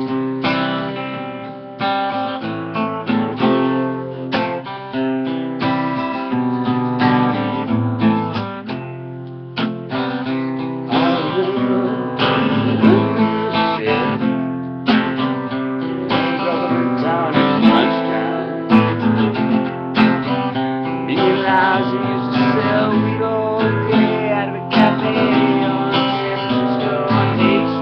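Acoustic guitar strumming chords in an instrumental passage without singing.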